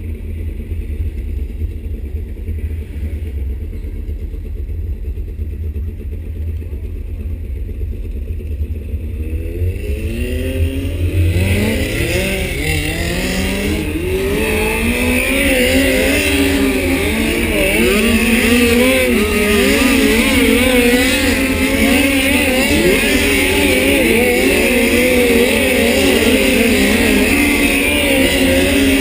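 Midget race car engines on a dirt track: a low rumble at first, then from about ten seconds in several cars come up and grow louder, their engine pitch rising and falling as they accelerate and lift for the turns.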